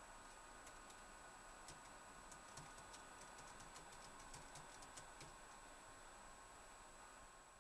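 Typing on a laptop keyboard: faint, irregular key clicks that stop about five seconds in.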